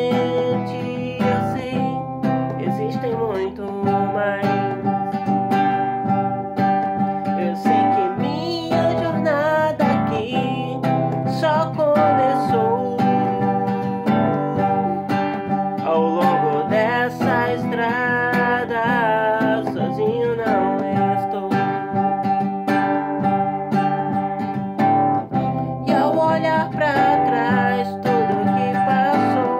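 Acoustic guitar strummed steadily while a man sings over it, holding long notes with a melody that rises and falls.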